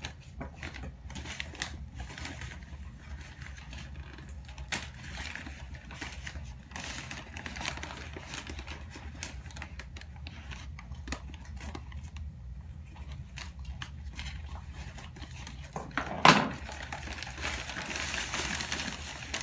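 Packing material rustling and crinkling as potted orchids are unwrapped by hand, in scattered small crackles with a longer crinkling stretch near the end and one louder bump about sixteen seconds in. A steady low hum runs underneath.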